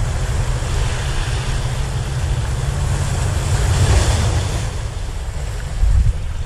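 Sea waves washing against the rocks of a breakwater, with wind rumbling on the microphone; a wave breaks and sprays over the rocks about four seconds in.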